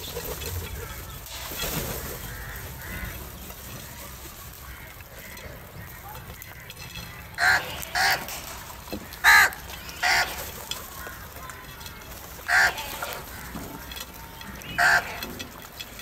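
House crows cawing: six short, loud caws in the second half, the first four close together and the last two a couple of seconds apart.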